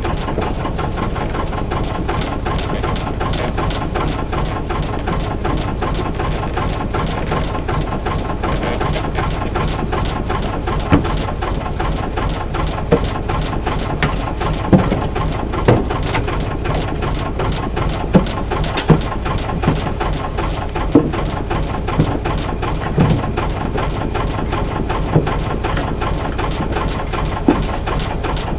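Albin 2D marine inboard engine running steadily under way, a low, even chugging. From about a third of the way in, short sharp knocks come now and then over it.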